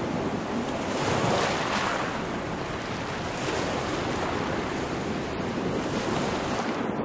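Sea waves rushing and wind buffeting the microphone aboard a sailboat under way in choppy water. The rush of water swells about a second in.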